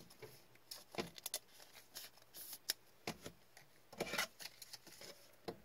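Gloved hands handling a trading card and plastic card holders: scattered light clicks and brief scrapes of card stock and plastic, with a longer scrape about four seconds in.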